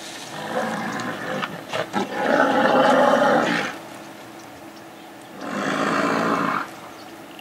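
Lions growling over a giraffe calf they have pulled down, in three loud bursts, the longest and loudest about two seconds in.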